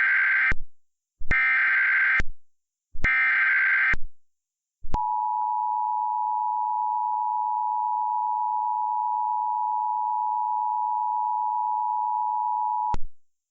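Emergency Alert System tones. First come three one-second bursts of SAME header data squawk, the first already under way. Then, from about five seconds in, the steady two-tone EAS attention signal (853 and 960 Hz) sounds for about eight seconds and cuts off.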